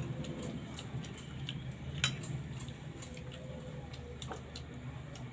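Eating sounds: a metal spoon clicking and scraping on a plate in small scattered ticks, with one sharper clink about two seconds in, over a steady low hum.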